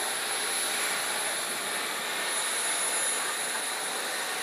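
Small gas-turbine engine of a Boomerang Nano radio-controlled jet running in flight: a steady high-pitched whine over a rushing hiss.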